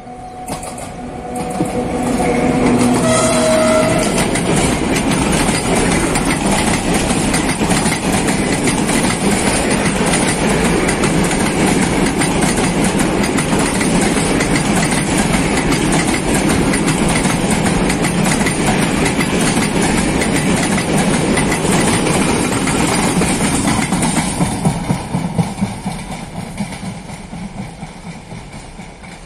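A freight train hauled by an electric locomotive passes close by, with a brief pitched tone about three seconds in. A long string of open freight wagons follows, rolling by with a steady clatter of wheels over the rail joints. The sound fades away near the end as the last wagons recede.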